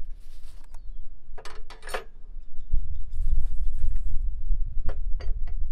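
Metal clinks and scrapes of hand tools and parts as a washer, nut and wrench are fitted onto the saw-blade shaft of a hemp harvester's cutting arm. About three seconds in, a loud, uneven low rumble comes in and takes over, with a few sharp clicks near the end.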